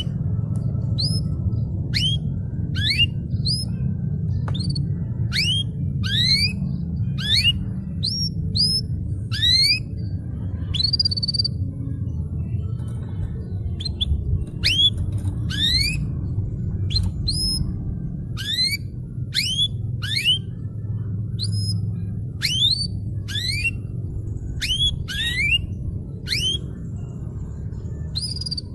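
Domestic canary singing vigorously and continuously: a long run of rising whistled sweeps, about two a second, with a short break in the middle, over a steady low rumble.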